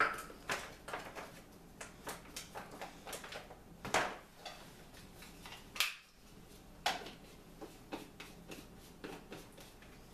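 Hands working with plastic food packaging and a plastic shaker bottle: irregular crinkles, taps and clicks, with a few sharper knocks, the loudest about four and six seconds in.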